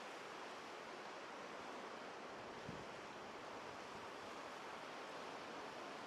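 Small ocean waves breaking and washing up a sandy beach, a steady hiss of surf. A brief low thump about halfway through.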